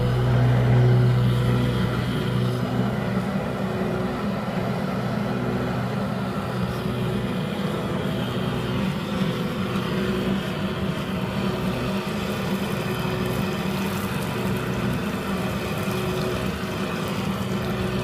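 A motor running steadily: a low hum with a rushing noise over it, holding an even level.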